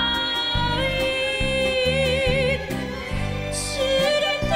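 A woman singing an enka ballad in long held notes with a wide vibrato, over orchestral accompaniment with a steady low beat.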